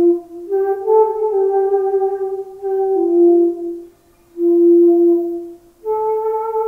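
Solo transverse flute playing a slow melody of long held notes with slight bends between them. It breaks off for breath just after 4 s and again just before 6 s, then holds a higher note.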